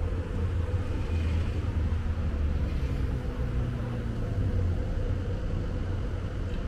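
Steady low rumble of a vehicle driving slowly, with a steady engine hum and a faint pitch drift as it changes speed partway through.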